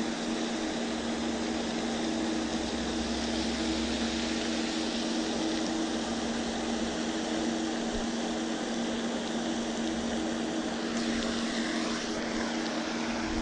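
A motor humming steadily, holding two even tones, over a constant hiss.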